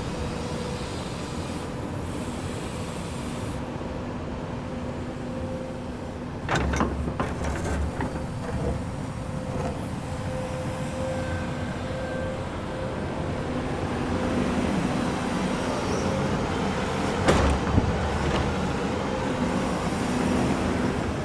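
Komatsu excavator's diesel engine running at a steady drone, with two bursts of sharp metallic clanks and thumps from the machine at work, one about six seconds in and one about seventeen seconds in.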